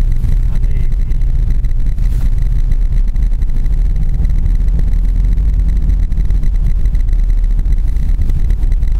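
Suzuki Grand Vitara engine running with a steady low drone, heard from inside the cabin while the SUV drives along a snow-covered road.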